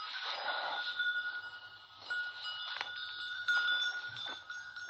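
Livestock bells ringing steadily, several overlapping held tones with a few sharp clangs, over wind buffeting the phone's microphone.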